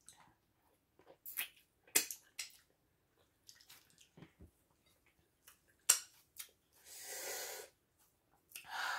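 Wet mouth sounds of eating fufu and egusi soup by hand: scattered short smacks and squishes of chewing, with a longer breathy sound about seven seconds in.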